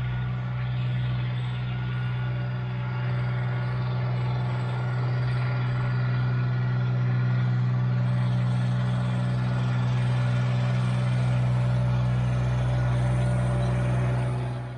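Kubota BX1850 compact tractor's three-cylinder diesel engine running at a steady speed, a constant drone that grows a little louder as the tractor comes closer and passes.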